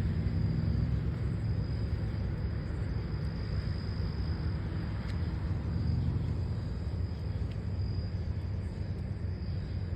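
Crickets or other night insects trilling steadily in a high, thin tone over a constant low rumble.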